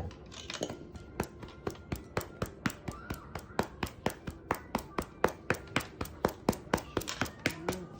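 A hand patting a cat's rump in a steady rhythm, about three to four pats a second, the pats growing louder after the first second or so.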